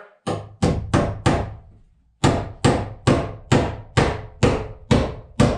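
A hammer driving nails into heavy wooden floor planks: four quick blows, a pause of about a second, then a steady run of about three blows a second.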